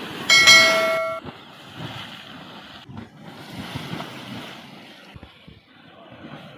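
Fast river water churning and splashing against a crumbling mud bank, a steady rushing noise. About half a second in, a short, loud bell-like chime rings for under a second over it.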